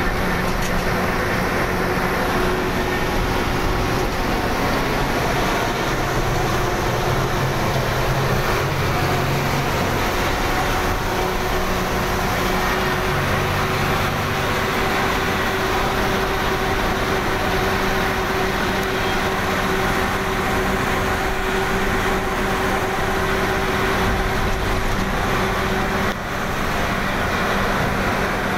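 Truck's diesel engine running steadily while driving, heard from inside the cab, with road and wind noise underneath; the engine's low note shifts a little about halfway through.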